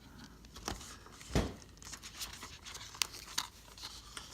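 Packaging of a memory kit being opened and handled: scattered crinkling and small clicks, with one louder knock about a second and a half in.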